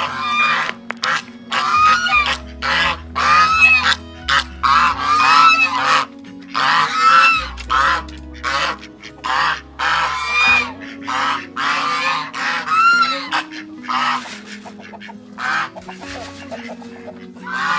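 Geese honking over and over, short rising-and-falling calls about every half second, with background music underneath.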